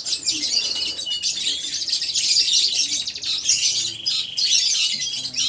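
Domestic canary singing a long unbroken song of rapid chirps, sweeping notes and fast trills, the 'long burst' that canary keepers prize.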